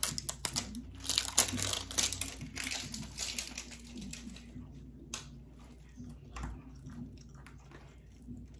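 Packaging crinkling and crackling as an eyeshadow palette is worked out of its box, densest and loudest from about one to three and a half seconds in, then a few scattered clicks and handling sounds.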